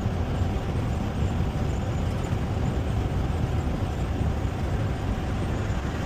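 Steady low rumble of a running motor vehicle, even and unbroken throughout.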